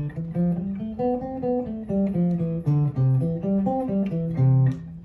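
Hollow-body electric guitar playing a C major scale note by note, climbing and falling in runs at about three to four notes a second.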